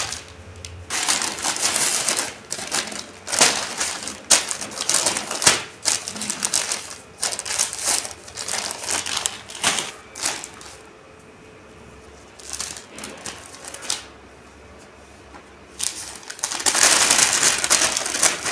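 Newspaper rustling and crinkling as sheets and folded paper packets are handled, in irregular bursts, with a quieter stretch about two-thirds through and a louder spell of rustling near the end.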